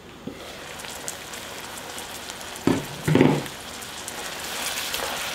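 Potatoes and onions in a soy and gochujang braising sauce bubbling and sizzling in an uncovered pot as it comes up to a boil, stirred with a wooden spatula. Two loud clunks about halfway through.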